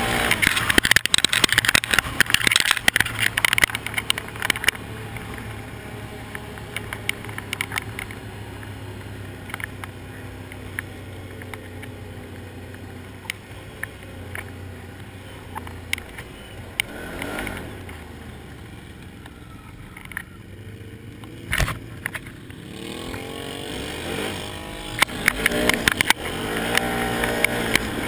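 Can-Am quad's V-twin engine running under the rider, revving up and down near the start and the end, with a quieter, steadier stretch in the middle. Stones and ruts clatter against the machine, and there is a single sharp knock a little past the middle.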